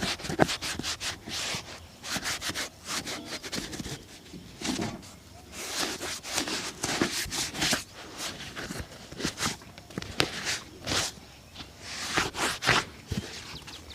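Quick rubbing strokes on a shoe being cleaned and polished, coming in runs with short pauses between.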